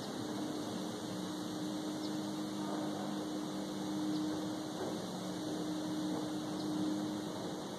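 Steady low drone of a distant engine, holding two low tones, over an even hiss of outdoor background noise, with a few faint high ticks.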